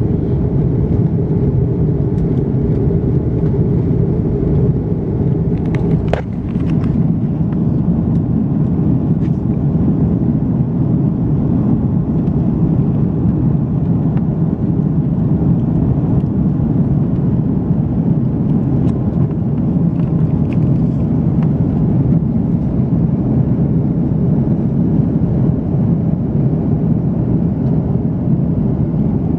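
Steady roar of an Airbus A330-200's engines and airflow, heard inside the cabin during the climb after takeoff. About six seconds in a short rising tone and a few clicks cut through, and the rumble then changes slightly in tone.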